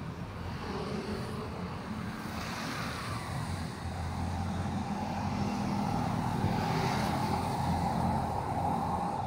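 Road traffic on a busy city street: a steady mix of engine and tyre noise that grows a little louder about four seconds in.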